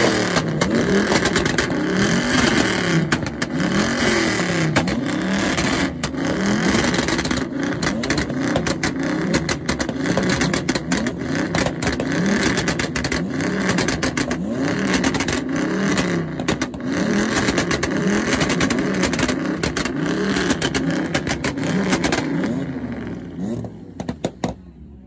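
Dodge Charger engine revved over and over through a loud exhaust, each rev rising and falling in pitch about once a second, with sharp crackles and pops throughout. The revving dies away near the end, with a couple of last pops.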